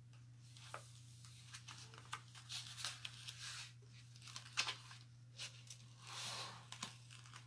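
Faint rustling and crinkling of an adhesive silkscreen transfer being peeled from its backing sheet and handled, with scattered small clicks and a brief soft swish about six seconds in as it is smoothed down.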